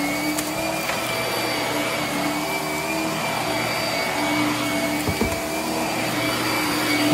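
Hart upright vacuum cleaner running on carpet: a steady motor whine over rushing airflow, with a lower tone that shifts slightly as it is pushed back and forth. A couple of brief low bumps about five seconds in.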